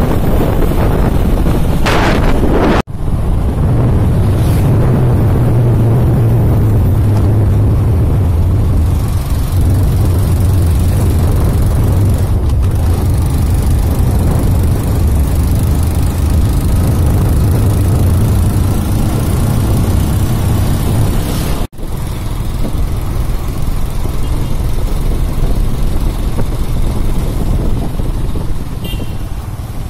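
Motor scooter riding along: a steady low engine drone under rushing wind and tyre noise on wet asphalt. The sound drops out sharply twice, about three seconds in and about twenty-two seconds in.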